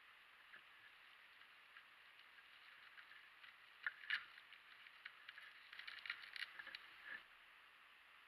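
Faint crinkling and crackling of plastic wrapping being peeled open by hand, with two louder crackles about four seconds in and a quick run of crackles near the end.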